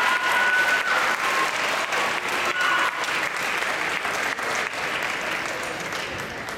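Audience applauding, with a few brief whistles or shouts early on; the clapping dies away near the end.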